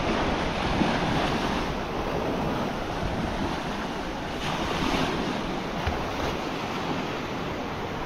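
Ocean surf breaking on the shore in a steady wash, with wind rumbling against the microphone.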